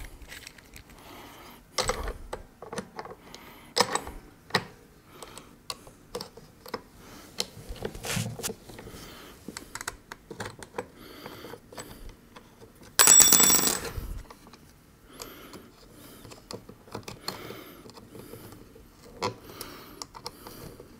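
Clicks, knocks and light scraping of a small red-dot sight on a low mount being fitted and clamped onto the top rail of an airsoft submachine-gun replica, with one louder grating noise about a second long near the middle.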